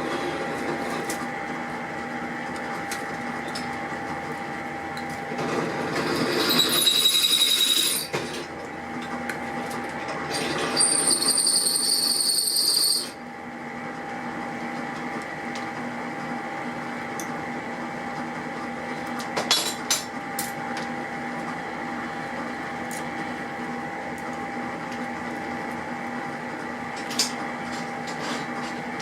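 Cordless electric screwdriver whining in two runs of a few seconds each as it backs out screws, over a steady hum. A few light clicks of handling parts follow later.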